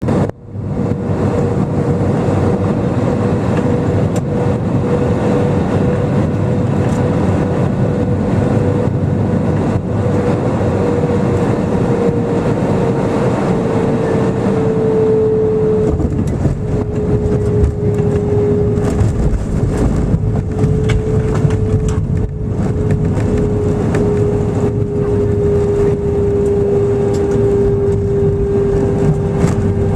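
Airbus A320 cabin noise during the landing: a steady, loud rumble of engines and airflow, with an engine whine that slowly drops in pitch.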